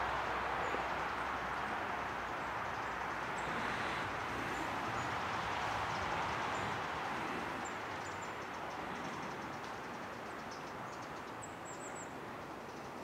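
Pine wood pellets burning strongly in a Solo Stove Campfire: a steady rushing noise with faint crackles, easing slightly toward the end.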